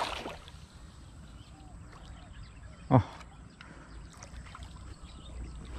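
Hooked giant snakehead (toman) splashing at the water's surface beside a boat, the splash dying away within about half a second. About three seconds in comes a single short thump.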